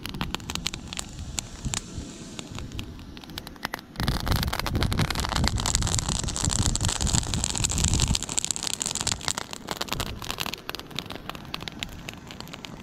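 Dead grass and reeds burning, crackling with many sharp irregular pops. About four seconds in, a much louder rushing noise with a low rumble joins in and eases back after about four seconds.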